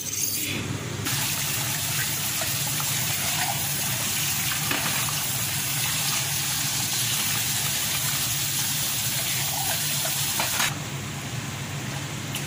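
Kitchen tap running onto green peas in a stainless steel mesh strainer: a steady rush of water that starts about a second in and stops shortly before the end.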